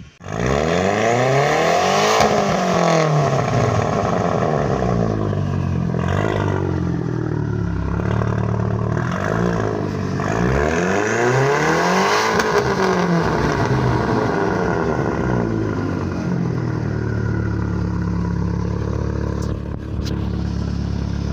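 Audi S3 8L's turbocharged 1.8-litre four-cylinder, running through a straight-piped exhaust. It comes to life at the start, is revved up and let fall back twice, then settles to a steady idle.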